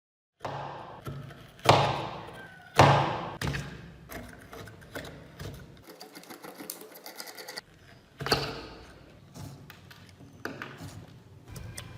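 A series of hard knocks on a hard surface, each ringing briefly as it dies away. The two loudest come about a second apart near the start, and another comes about eight seconds in, with lighter clicks and clatter between.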